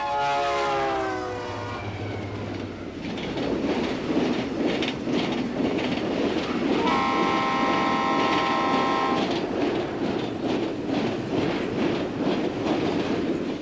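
Toy electric train with a Santa Fe diesel locomotive running past on model track: a steady rumble and clatter of wheels on the rails. Its horn sounds twice, first gliding down in pitch over the opening two seconds, then held steady for about two seconds around the middle.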